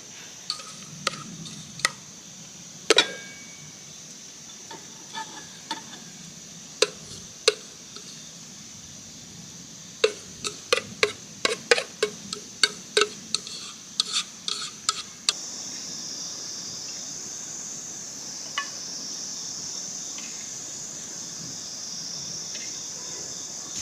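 Utensils clinking against cookware and dishes: scattered sharp clinks, some ringing briefly, come thick and fast between about ten and fifteen seconds in. After that the clinking stops and only a steady high hiss is left.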